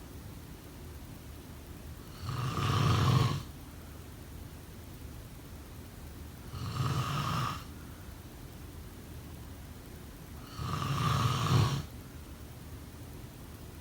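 A person snoring in a slow, even rhythm: three snores about four seconds apart, each lasting about a second with a low rumble. A faint steady hiss fills the gaps between them.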